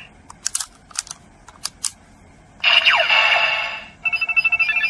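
Kamen Rider DX Build Ridewatch toy: several sharp plastic clicks as it is handled, then electronic sound effects from its small speaker, a burst with a falling pitch sweep about halfway through and rapid stuttering beeps from about four seconds in.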